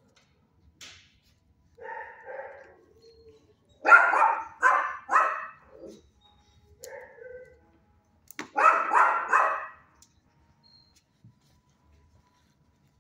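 Dog barking: softer drawn-out calls, then a burst of three loud barks, another softer call, and a second loud burst of barks past the middle.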